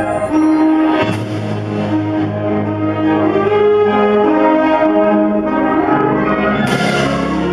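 High school wind ensemble playing sustained chords, brass to the fore, with a crash about a second in and another near the end.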